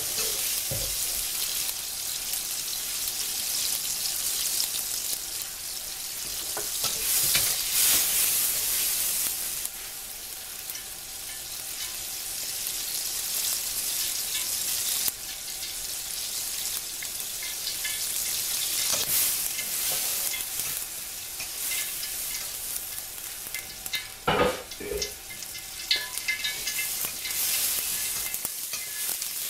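Tomato wedges sizzling in hot oil in a pan over high heat: a steady frying hiss that swells louder in places, with a couple of sharp knocks a few seconds before the end.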